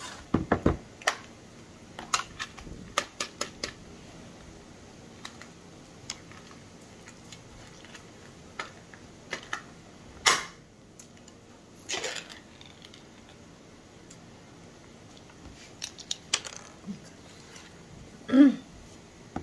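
Scattered clicks, crackles and scrapes of a plastic snack jar and its seal being picked at and opened by hand, with a brief vocal sound near the end.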